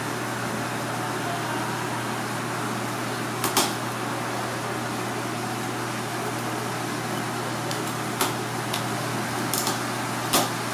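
A kitchen knife knocks and cracks through a slipper lobster's shell onto a cutting board, making a handful of short sharp knocks about three and a half seconds in, around eight seconds, and near the end. Under them runs a steady machine hum.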